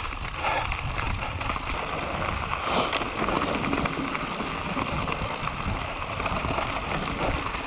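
Enduro mountain bike riding down a dirt forest singletrack: tyres rolling over dirt and roots, the bike rattling, with wind rumbling on the microphone.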